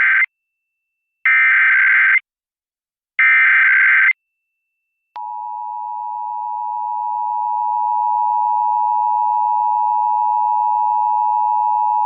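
Emergency Alert System test: the tail of one burst and two more one-second bursts of the SAME header's digital data tones, about a second apart. About five seconds in, the steady two-tone attention signal begins, swells for a few seconds, then holds.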